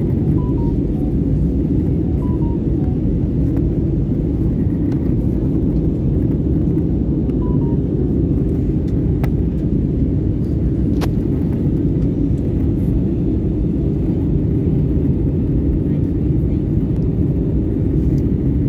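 Jet airliner cabin noise in cruise: the steady, even rumble of the engines and airflow, heard inside the cabin at a window seat.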